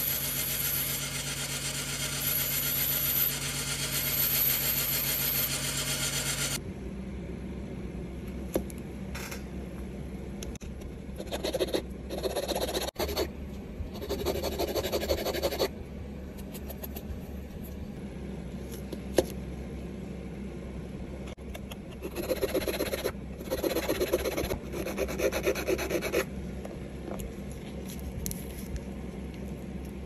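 A rotary tool's small abrasive disc runs against the metal of a pocket knife with a steady hum and hiss, then stops about six seconds in. Later come two spells of rapid hand rubbing strokes, as of filing or sanding the knife's metal parts by hand.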